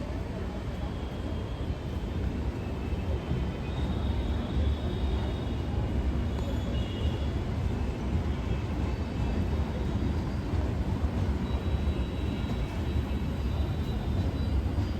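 A train moving through the railway station: a steady low rumble that grows slightly louder a couple of seconds in, with faint high-pitched tones above it.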